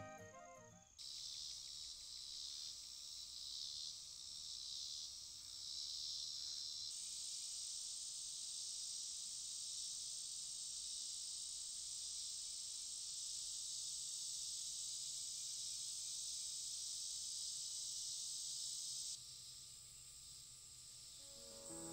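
Summer insects chirring in a high-pitched chorus, pulsing at first, then settling into a constant drone about a third of the way in that eases off near the end.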